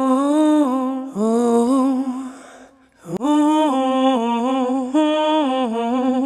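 A voice humming a short a cappella tune in held notes that step up and down, in three phrases.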